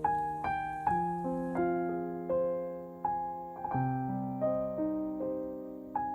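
Slow piano music: single notes and chords struck about every half second, each left to ring and fade.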